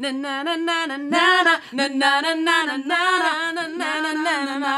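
A woman singing a melody unaccompanied on 'na na na' syllables, in a steady run of short notes.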